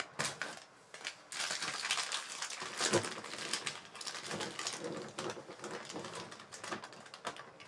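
Packaging rustling and crinkling, with many small clicks, as the soldering iron handle is unwrapped and handled.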